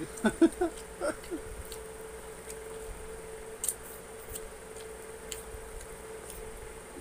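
Chewing and lip-smacking of people eating fried chicken with their fingers: scattered sharp mouth clicks and smacks, a few a second at first, then sparser, over a steady faint hum.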